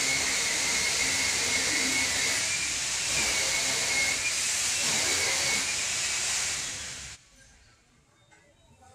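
A steady, loud hiss with a faint wavering whistle-like tone in it, cutting off suddenly about seven seconds in, leaving near quiet.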